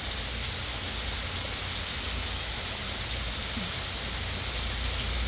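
Heavy rain falling steadily, a constant even patter with faint scattered drops.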